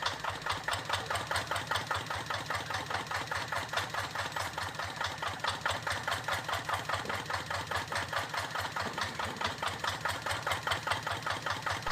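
Small engine idling with a steady, rapid, even chugging.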